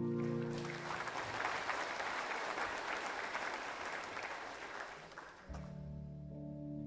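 A held chord from the worship band dies away within the first second, then a congregation applauds for about four seconds, the clapping fading out. About five and a half seconds in, a sustained low chord comes in.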